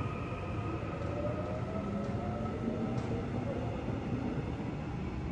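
Gyeonggang Line electric commuter train pulling out of the station, its motor whine rising in pitch as it speeds up over a steady rumble of wheels on rail. A sharp click comes about three seconds in.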